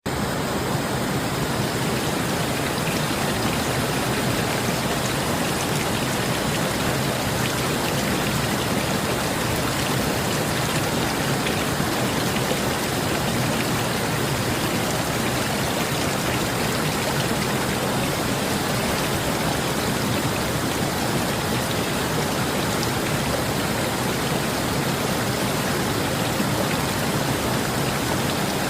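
Steady, even rush of water: a flowing river with rain falling.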